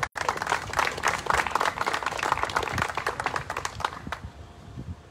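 A small crowd clapping, a dense patter of hand claps that dies away after about four seconds.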